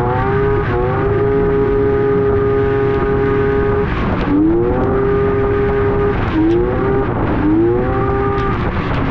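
Yamaha three-cylinder two-stroke snowmobile engine under way, holding a steady pitch, then easing off and revving back up about four seconds in and twice more near the end. It is running on all three cylinders again, the spark plug wire that had pulled out of the coil now plugged back in.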